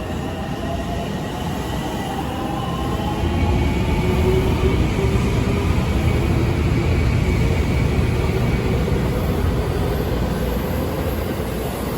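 JR West electric commuter train running along the platform, with a steady rumble of wheels on rail and a motor whine slowly rising in pitch. It grows louder about three seconds in.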